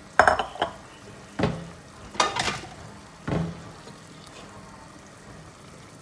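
A cooking utensil knocks and scrapes against a pot of simmering igado, about five short clunks in the first three and a half seconds. A faint steady sizzle of the simmering stew sits underneath.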